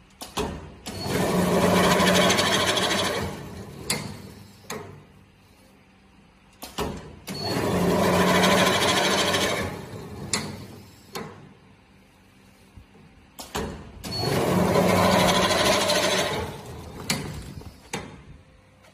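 Paper tube cutting machine working through three cutting cycles: each cut is a loud, noisy run of about three seconds over a low motor hum, with sharp clicks and knocks from the mechanism between cuts, repeating about every six to seven seconds.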